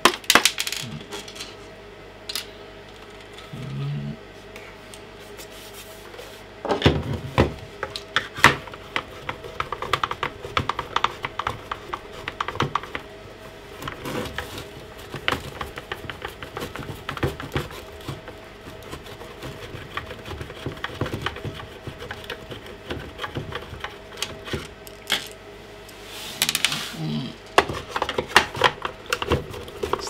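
A hand screwdriver working screws out of a plastic handheld-vacuum housing: a long run of small, irregular clicks and scrapes, with a few sharper clatters of small hard objects near the start and again near the end.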